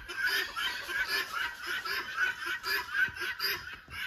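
Chickens and other birds calling: a rapid, chattering chorus of short chirps with low clucks repeating a few times a second.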